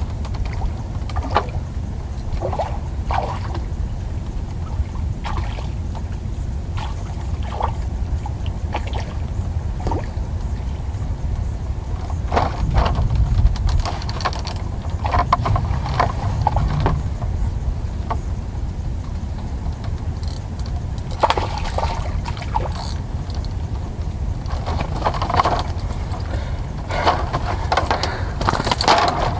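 A steady low rumble of wind on the microphone, with scattered clicks and knocks from fishing tackle and water splashing in bursts near the end.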